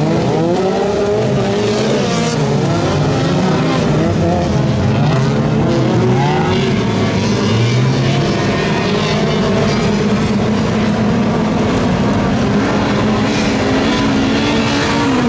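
Several front-wheel-drive autocross cars racing together on a dirt track. Their engines overlap, each revving up and dropping back in pitch through gear changes and corners.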